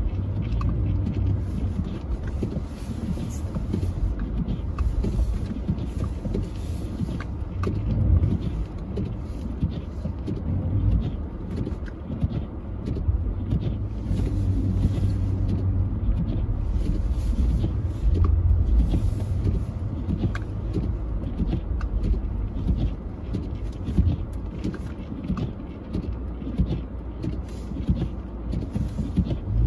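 A car moving through snow: a steady low rumble of engine and tyres that swells and eases.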